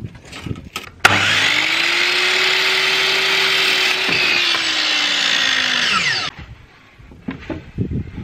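Biltema sliding mitre saw switched on: the motor whines up to speed and runs steadily for about five seconds while the blade is pulled down through a wooden board. The saw is then released and winds down. Light knocks of the board being handled come before and after.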